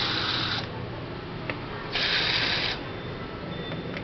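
A screwdriver backing screws out of a TV's power supply board in two short bursts, at the start and about two seconds in.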